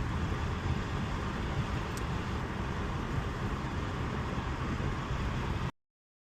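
Steady engine and road noise heard inside a Holden VY Commodore's cabin while driving. It cuts off suddenly about five and a half seconds in.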